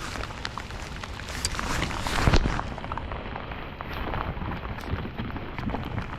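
Rain pattering during a thunderstorm: many small taps over a steady rush of noise, with one louder thump a little over two seconds in.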